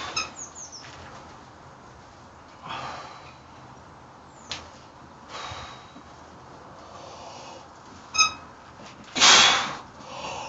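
A lifter's forceful breaths under a heavy barbell during a set of paused bench presses: short hissing breaths every few seconds, the loudest near the end. Brief metallic clinks of the loaded bar, one ringing sharply shortly before that last breath.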